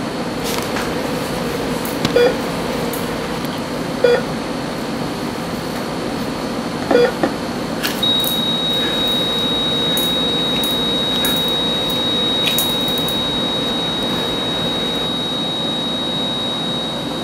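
Heart-monitor beeps coming at slowing, irregular intervals, three times, then about eight seconds in a continuous high flatline tone that holds to the end: the monitor signalling that the heart has stopped. A steady hiss runs underneath.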